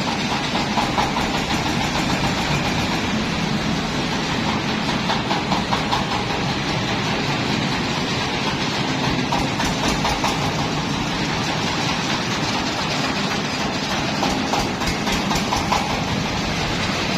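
Mobile rice milling machine running steadily: its engine and the milling machinery make a loud, continuous mechanical clatter.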